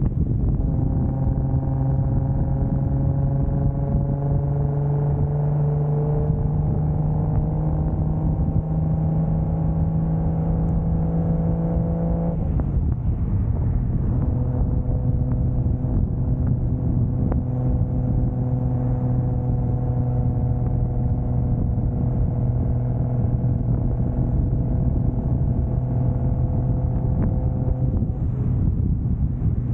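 1995 Toyota Soarer's single-turbo 2JZ inline-six under way, its pitch rising slowly, then dropping abruptly about twelve seconds in and holding steady at lower revs, with road and wind noise underneath.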